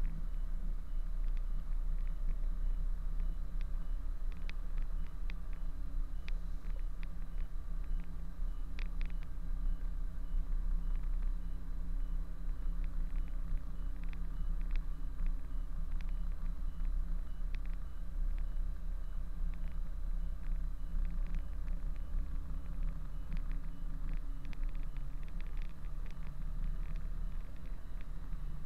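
Kenworth truck's diesel engine running steadily at low revs as the B-double is backed up slowly, with scattered light ticks over the engine's hum.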